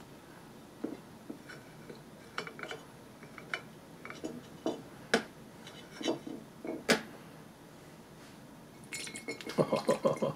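Metal tin can tapping and clinking against a ceramic dish as it is handled. Near the end comes a quick run of sloshing and splattering as canned silkworm pupae and their liquid are tipped out into the dish.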